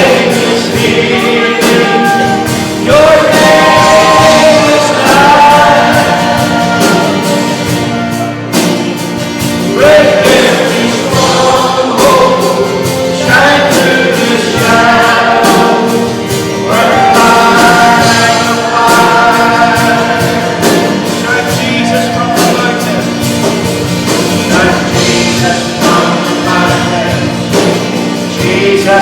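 Worship song with a group of voices singing a melody over instrumental accompaniment and a light steady beat.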